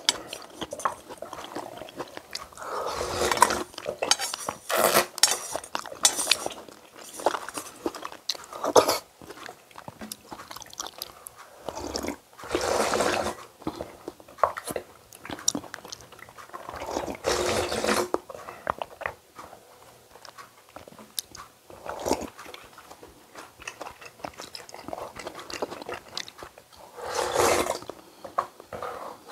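A person eating oyster noodle soup: several loud slurps of noodles and broth, each about a second long, with chewing and short clicks of utensils against the bowl in between.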